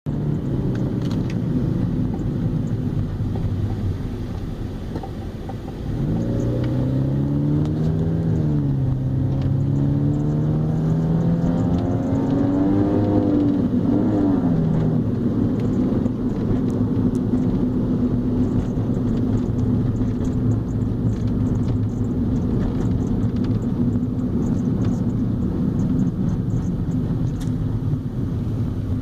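Honda Civic EK hatchback running, with the engine note climbing between about 6 and 15 seconds in as it accelerates, then holding steady. Faint, short high-pitched chirps come through at intervals over the running noise. The owner cannot identify this chirping and suspects the suspension.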